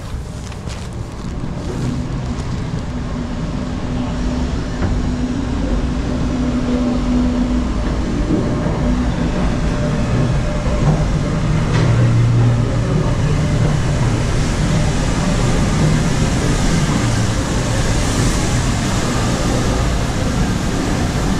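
Steam train, LMS Black Five 4-6-0 No. 45212, rolling into the station platform tender-first with its rake of carriages: a heavy rumble of wheels on rail that grows louder from about two seconds in as the locomotive and then the coaches pass close by.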